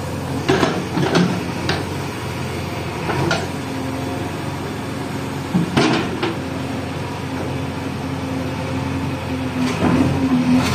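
JCB 3DX backhoe loader's diesel engine running steadily, with several sharp metallic clanks from its front loader arm and bucket working the soil, bunched near the start, once or twice in the middle and again near the end.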